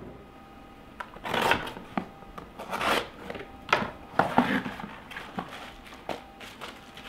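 A small cardboard shipping box opened by hand: irregular scrapes, rustles and small knocks of the cardboard flaps, then the crinkle of a bubble-wrap pouch lifted out near the end.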